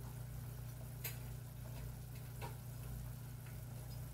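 A saucepan of seasoned broth simmering on an electric stovetop: a steady low hum with a few light ticks, the clearest about a second in.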